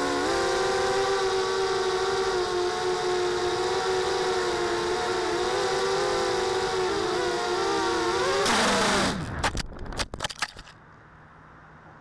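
Mini quadcopter's four small brushless motors and 5x3 propellers buzzing in a steady, slightly wavering whine as it flies. About eight and a half seconds in there is a sudden loud burst as it hits the grass. The pitch falls as the motors spin down, and a few sharp knocks and clicks follow before the sound drops away to a quiet background.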